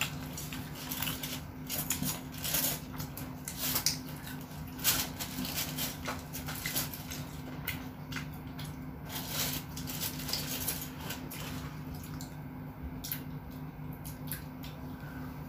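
Mukbang eating sounds: scattered wet clicks and smacks of a child chewing and handling fries and a wrapped chicken sandwich, over a low steady hum.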